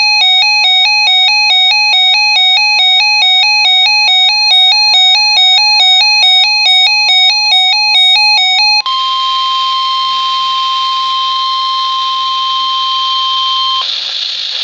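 Emergency Alert System alert tones: a buzzy electronic two-tone warble alternates rapidly for about nine seconds. It then switches abruptly to a single steady alarm tone, the weather-radio warning tone, over radio hiss. That tone stops about a second before the end, leaving only the hiss.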